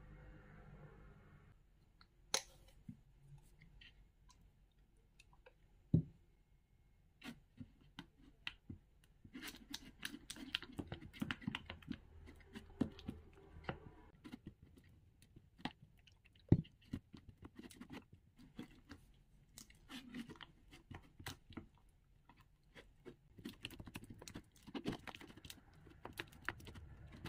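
Glue and slime activator being stirred in a pink plastic bowl with a utensil: dense wet clicking, squelching and scraping against the plastic, starting about a third of the way in as the glue thickens into slime. A few sharp taps of plastic on plastic come before and during the stirring.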